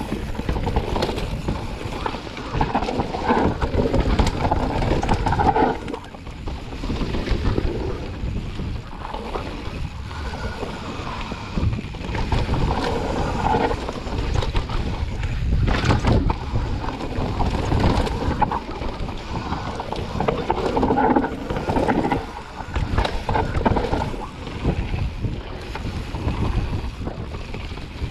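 Wind buffeting a mountain bike rider's camera microphone over continuous tyre rumble, with irregular knocks and rattles as the bike rolls down a rough dirt trail.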